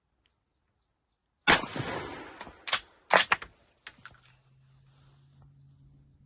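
A single rifle shot with a short echoing tail, followed by several sharp metallic clacks as the bolt is worked to chamber the next round.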